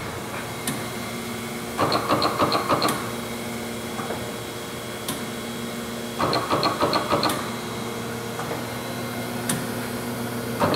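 Chevalier FSG-3A818 hydraulic surface grinder running in auto plunge mode, with a steady hum from the spindle and hydraulic pump. A single click comes at one reversal of the table. About every four and a half seconds, a short rattle of rapid clicks sounds as the incremental downfeed steps the wheel down every two table strokes.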